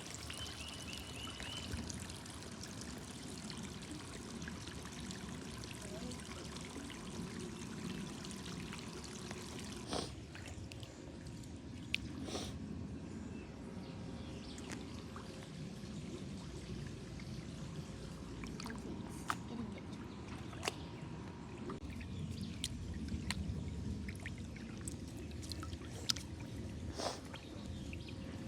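Creek water trickling steadily, with a few light clicks scattered through.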